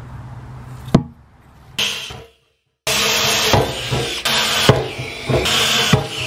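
A sharp click about a second in, then, after a brief gap, a cordless drill running as it bores small holes through the sheet-metal top of a fuel cell, with several knocks along the way.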